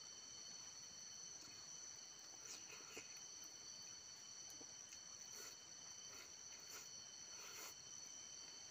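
Faint, steady high-pitched insect chirring, with soft chewing and mouth sounds of eating now and then.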